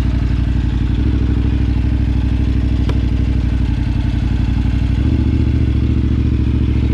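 Twin-cylinder adventure motorcycle engine idling steadily. About five seconds in, its note changes as the bike pulls away slowly. A single brief click sounds midway.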